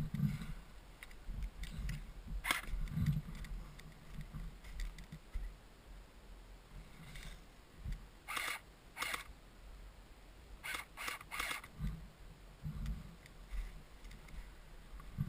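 Airsoft guns firing, heard as short sharp snaps: one about two and a half seconds in, two more around eight and nine seconds, then three in quick succession around eleven seconds. Low thumps run underneath.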